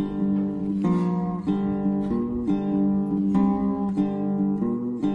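Background music: acoustic guitar strumming chords in a steady rhythm, the chord changing about every half second.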